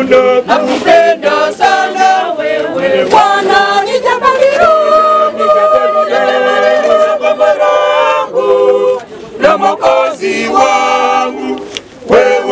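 A group of people singing together without accompaniment, holding long notes in phrases with brief breaks between them.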